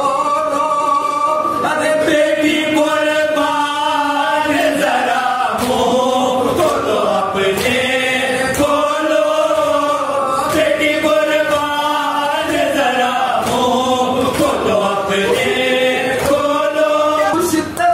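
Group of men chanting a marsiya, the Shia elegy for Imam Husain, together in long held, slowly gliding sung lines. Occasional hand slaps come from men beating their chests (matam) in time with the recitation.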